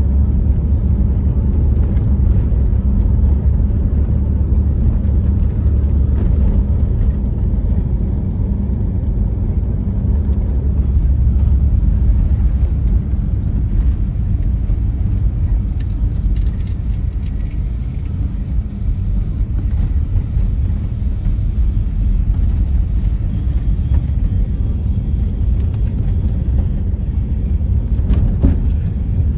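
An engine running steadily with a heavy, low rumble.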